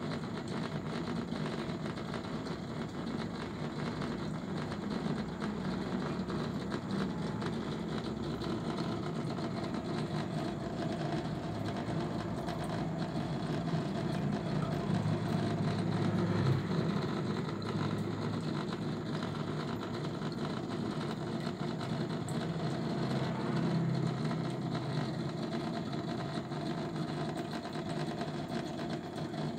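Aquarium pump humming steadily, swelling slightly twice.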